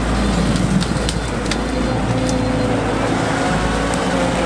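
ATAC-V Patrol's diesel engine running steadily under load as the vehicle pushes through brush on its huge tyres, with a few sharp cracks of twigs and branches snapping.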